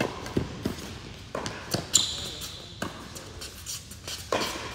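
Indoor hard-court tennis rally: a tennis ball struck by racquets and bouncing on the court, a string of sharp pops and thuds echoing in the hall, with a sharp sneaker squeak about two seconds in.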